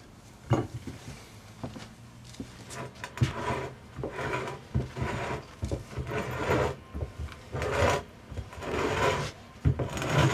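Collapsible grapnel-style kayak anchor dragged by its rope across a floor: metal flukes scraping and bumping along in a run of uneven strokes, with sharp knocks between them.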